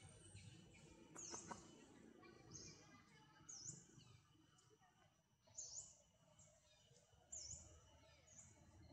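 Faint high-pitched bird chirps, short and repeated about once a second, over near silence. There is a small click about a second and a half in.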